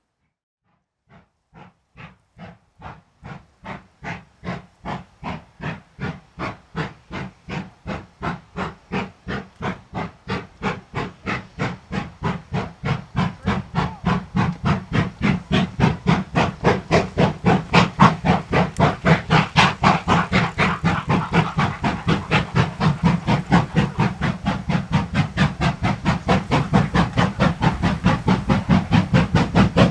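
Steam locomotive working hard under load, its exhaust beats chuffing in an even rhythm of about two to three a second and growing louder over the first half.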